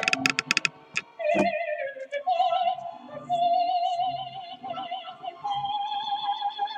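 Background music: a high singing voice in an operatic style, holding long notes with a wide vibrato and moving between a few pitches. A quick run of sharp clicks comes in the first second.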